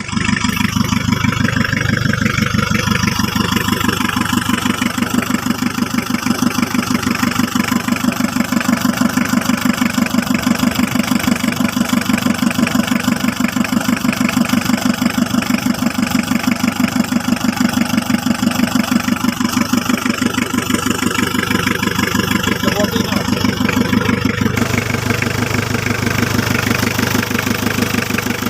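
Mitsubishi L300 engine idling steadily with an even, fast rhythmic clatter. The engine has a non-genuine ('palsu') 'PA' part fitted, and this is the running sound that goes with it. Its sound changes slightly about 24 seconds in.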